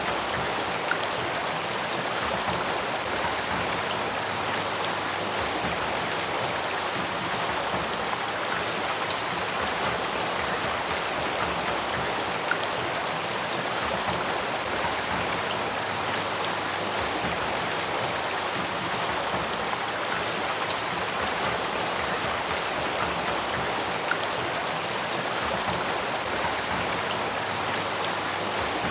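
Spring-fed headwaters stream of the Sacramento River flowing, a steady, even rush of water with faint tiny drips and ticks in it.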